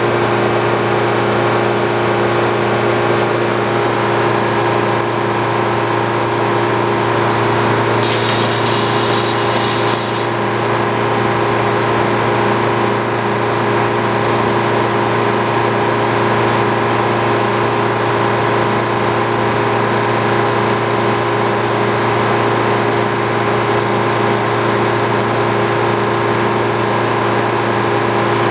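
Old Frick sawmill and its power unit running at a steady speed, with a brief faint high-pitched hiss about eight seconds in.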